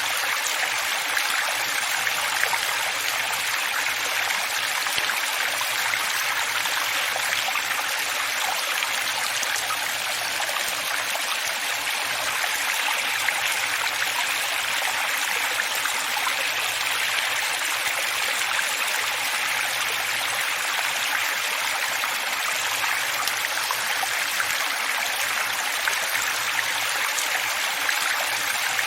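Running water flowing steadily: an even, unbroken rush with a hissing edge.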